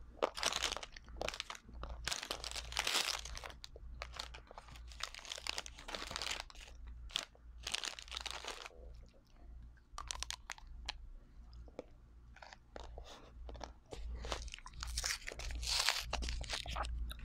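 Close-miked crunching and chewing of a chocolate-and-nut-coated ice cream bar, in irregular bites. Plastic wrappers crinkle now and then as packages are handled and torn open.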